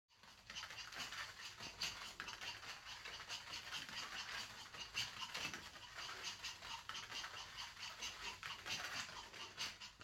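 Small dogs' paws and claws pattering and scratching on a play mat as they scamper and play: a quick, irregular clicking.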